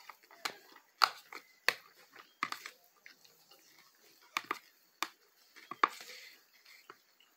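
Close-miked eating sounds: irregular sharp wet clicks and crunches of chewing, with a fork working through food in a plastic bowl. A brief rustling smear comes about six seconds in.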